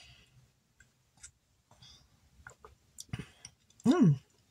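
Small mouth clicks and swallows as a person sips and chews a pulpy orange juice drink from a can, then a short hummed "mmm" of approval about four seconds in.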